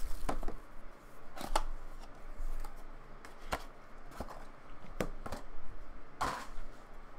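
Cardboard trading-card box being opened and handled: the 2020 Topps Clearly Authentic box slid out of its sleeve and its contents pulled out. A string of separate sharp taps, scrapes and rustles, the longest and loudest scrape about six seconds in.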